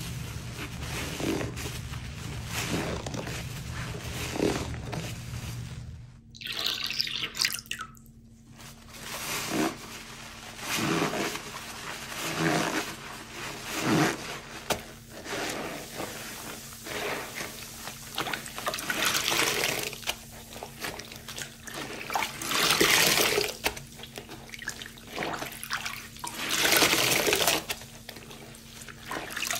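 A soap-soaked sponge being squeezed and pressed by rubber-gloved hands in a steel basin of water. Repeated wet squelches and splashes come every few seconds as sudsy water is wrung out and the sponge is rinsed.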